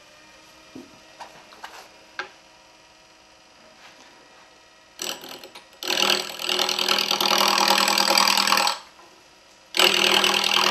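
Wood lathe spinning a purpleheart blank, at first with only a faint running hum and a few light ticks, then a turning tool cutting into the wood in two loud, rough passes of about three and two seconds, starting about six and ten seconds in. The blank is still out of round, so the tool bounces on it as it cuts.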